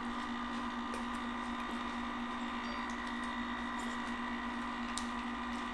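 Steady electric hum of a tabletop chocolate fountain's motor running, pumping melted cheese sauce, with a few faint clicks.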